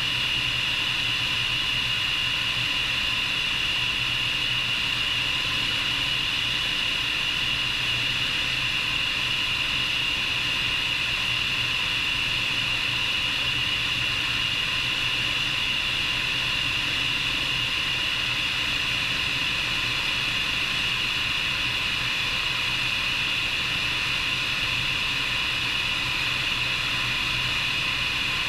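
Bell 430 twin-turbine helicopter in flight, heard from outside the airframe: a steady high-pitched turbine whine over a constant low rotor drone and rushing air noise.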